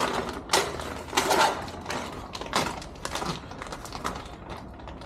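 Irregular handling noises: a series of short knocks, clicks and rustles as small door hardware parts are handled and moved about.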